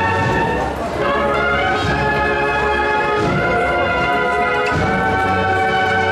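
Cornet and drum band playing a processional march: long held brass chords, changing about a second in, over the drums.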